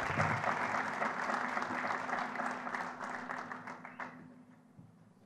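Audience applauding in a hall, steady at first, then thinning and dying away about four seconds in.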